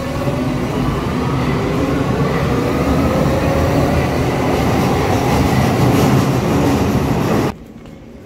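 Berlin U-Bahn train pulling away from the platform, its wheels rumbling and its motor whine rising in pitch as it gathers speed. The sound cuts off abruptly near the end.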